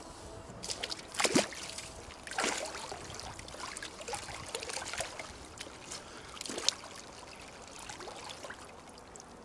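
Icy lake water splashing and sloshing as a bather lowers himself into a hole cut in the ice and goes under. A few louder splashes stand out, about a second in, at about two and a half seconds, and a sharp one near seven seconds.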